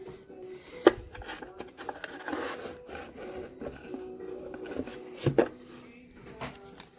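Paper trading cards and a cardboard box being handled on a wooden table: cards rubbing and sliding, with a sharp tap about a second in and another a little after five seconds.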